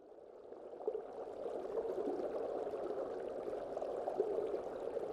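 Water trickling and splashing in a steady wash, fading up from silence over the first second or so.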